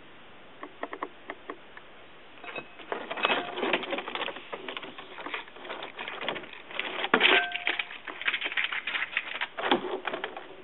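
A frilled dragon going after and eating a hornworm: a few scattered ticks, then a long run of dense clicks and scratches, loudest a little past the middle.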